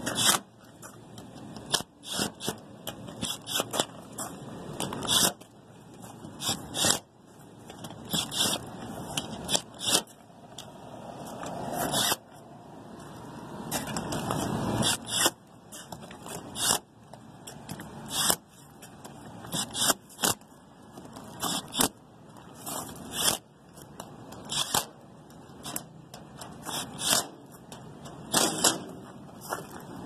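Milwaukee cordless impact driver with a nut-driver bit running in short bursts, a burst every second or two, driving hex-head screws back into the sheet-metal panels of a rooftop HVAC unit.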